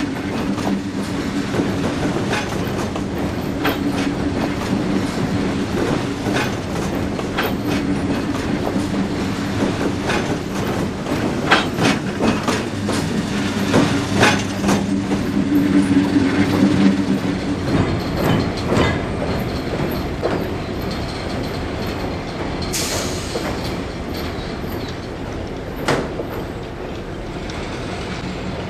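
Freight train rolling by: wheels clicking over rail joints over a steady low diesel drone, with a brief sharp hiss near the end.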